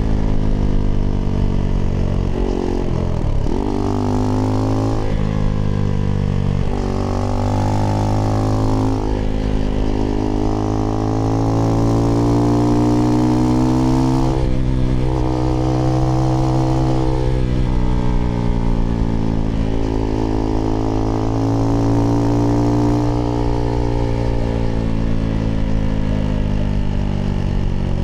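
Husqvarna Svartpilen 401's single-cylinder engine running through an IxRace Mk.2 aftermarket exhaust with a modified dB killer, heard while riding. The engine note rises and falls with throttle and gear changes, with a sharp dip and pick-up about three seconds in.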